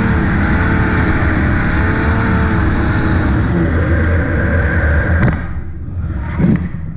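Nissan 240SX drift car's 2JZ straight-six engine running hard on a drift run, its pitch wavering up and down with the throttle. There is a sharp knock about five seconds in, after which the engine sound drops lower and quieter.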